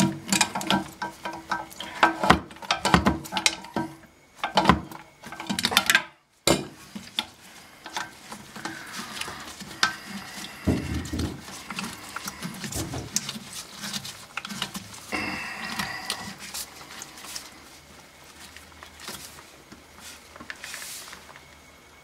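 Irregular clicks, clinks and knocks of hands working at the underside of a toilet tank, on the fill valve shank and its braided supply hose connection, during a fill-valve replacement.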